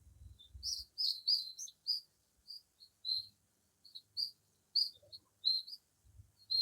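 Small bird chirping: a quick, irregular series of short, high chirps, about two or three a second.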